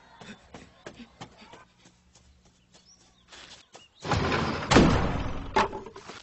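Cartoon sound effects: quick, light footsteps running up stairs, then about four seconds in a loud slam with a rattling rush as a door is thrown open.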